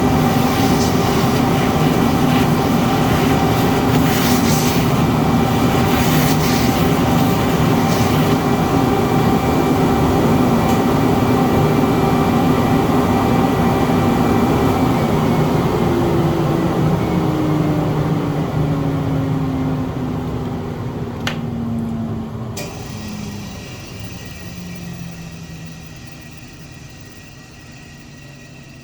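Root CNC router milling with a 6 mm compound-cut bit, its spindle and a dust extractor running steadily. A little past halfway the cut ends and a whine falls steadily in pitch as the motors wind down. There is a click about two-thirds of the way through, and the noise fades.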